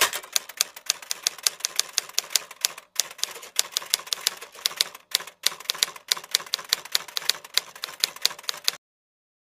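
Typewriter keystroke sound effect, a rapid run of sharp key clicks at about four or five a second, pausing briefly twice. It is added to the edit in time with on-screen text typing itself out, and it stops abruptly near the end.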